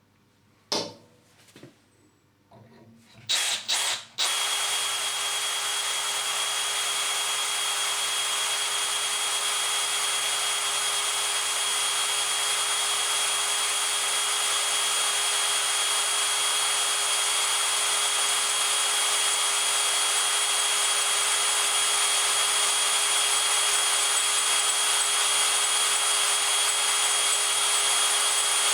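A few short knocks, then about four seconds in a power drill starts and runs steadily on low speed, its HSS bit cutting into 8 mm thick stainless steel lubricated with cutting paste, with a steady whine over the cutting noise.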